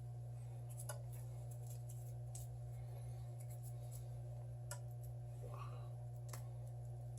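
Faint, scattered clicks and light scrapes of fingers and small tools handling and peeling a layer off the back of a phone screen, over a steady low electrical hum.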